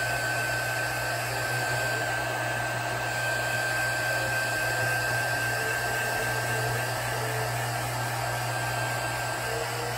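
Electric heat gun blowing steadily, with a constant high whine from its motor, as it is swept over wet epoxy on a tumbler to draw out bubbles.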